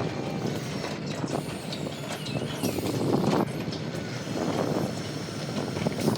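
Radio-controlled model excavator running, its motors and drive grinding in a noise that swells and fades, with light clicks and faint squeals.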